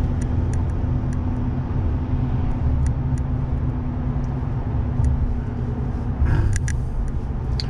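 Road and engine noise inside a pickup truck's cab while driving at highway speed: a steady low rumble with a constant hum.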